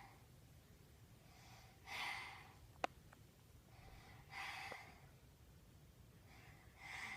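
A child taking slow deep breaths during a lung exam, three breaths about two and a half seconds apart, with one sharp click a little before three seconds in.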